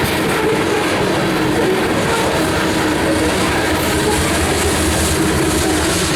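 Freight train rolling past on the rails: a steady rumble of wheels with a steady ringing tone beneath it.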